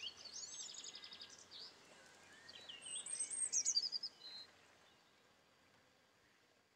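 A songbird singing varied warbling phrases with quick trills over a faint outdoor background hiss. The song is loudest about three to four seconds in, then everything fades away.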